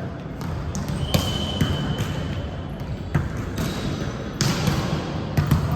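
Volleyball thuds in a gym during an indoor match: a handful of sharp hits and bounces, over a low background murmur. About a second in, a thin, steady high tone sounds for about a second and a half.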